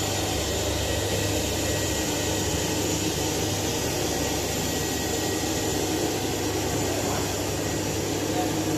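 Hamra HM61 carpet vacuum cleaner running steadily, an even rushing noise over a constant low hum.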